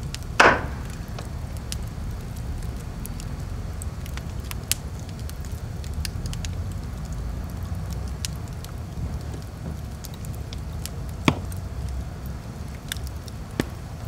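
Wood fire burning in a stone fireplace: a steady low rumble with scattered crackles and a few sharp pops, the loudest about half a second in and two more near the end.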